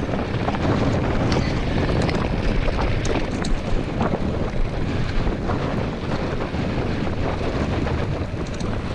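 Wind noise on the action-camera microphone of a mountain bike riding along a dirt road, over a steady rumble of the tyres on the packed dirt. Scattered small clicks and rattles from the bike come through.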